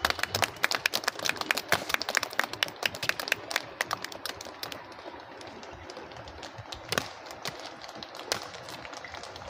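Boots of soldiers drill-marching on a tarmac road: rapid, irregular sharp clicks of many steps for the first few seconds, then only a few single spaced steps.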